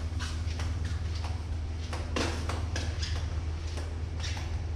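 Footsteps walking at an even pace, about two steps a second, over a steady low hum.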